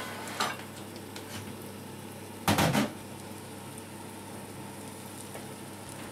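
A broccoli-nut patty frying in rapeseed oil in a stainless steel pan, with a steady light sizzle. About two and a half seconds in there is one short metal clatter, the loudest thing heard.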